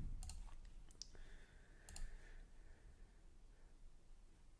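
Faint clicks of a computer mouse button, in quick pairs about a third of a second in and again near two seconds in.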